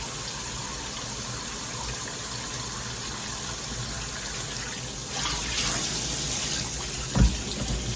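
Water spraying from a regular shower head, a steady hiss that gets louder about five seconds in. A short thump near the end.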